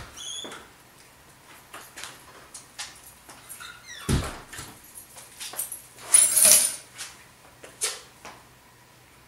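Front door being shut by hand, closing with a solid thud about four seconds in, after short high squeaks. A loud rustling burst follows a couple of seconds later, among scattered clicks and knocks.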